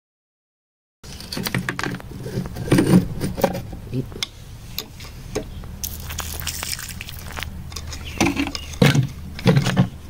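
A metal digging tool scraping and clicking through dry, crumbly soil and against crystals: irregular sharp clicks and scrapes over a steady low hum, starting about a second in.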